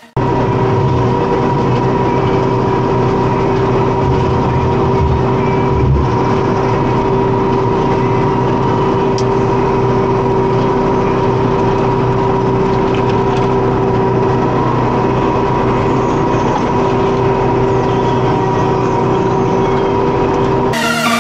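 McCormick X4-60 tractor running at steady revs with its PTO-driven Zanon boom flail mower, a steady machine drone with constant whining tones over the engine note. There is a brief knock about six seconds in.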